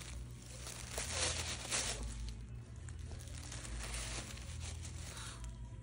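Tissue paper rustling, crinkling and tearing as a Shih Tzu chews and tugs at it. It is loudest in the first two seconds, then quieter.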